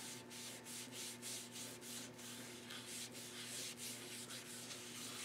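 Hand wiping water over a leather knife-sheath blank in quick repeated strokes, about three a second: the leather is being dampened (cased) before tooling.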